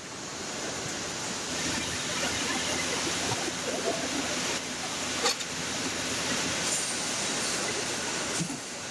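Steady rushing din of a car assembly line's machinery, with a faint low hum through the middle and a single sharp clack about five seconds in.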